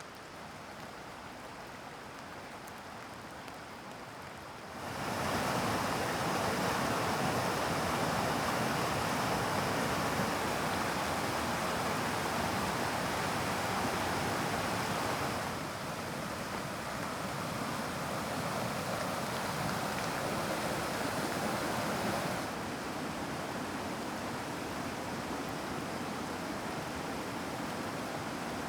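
Rushing mountain stream water, a steady rush; it gets suddenly louder about five seconds in, then drops back a little twice, around the middle and again near the end.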